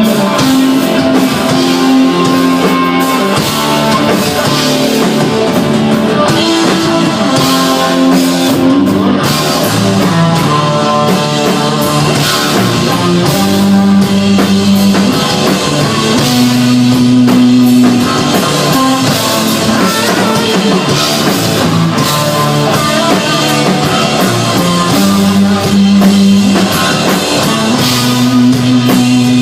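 Desert rock band playing live: electric guitar, bass guitar and drum kit, loud and continuous, with long sustained bass notes shifting every second or two under a steady wash of cymbals.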